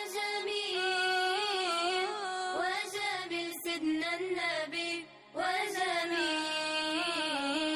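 Background Islamic devotional song (nasheed) praising the Prophet, a sung melody over music, with a brief pause about five seconds in.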